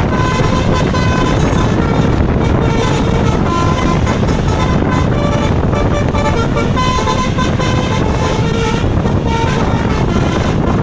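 Basuri V3 'telolet' bus horn playing a long, winding multi-note melody, its tones stepping up and down in pitch, over a loud low rumble.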